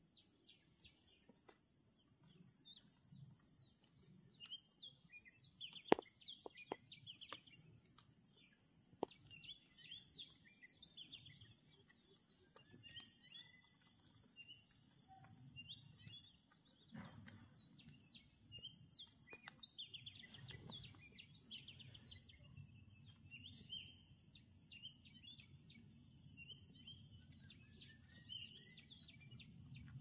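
Faint outdoor ambience: many short bird chirps and twitters come and go over a steady high insect drone, with a few sharp clicks.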